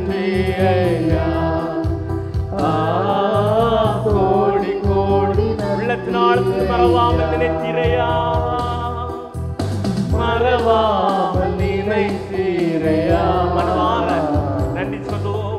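Christian worship song: singing over steady instrumental accompaniment.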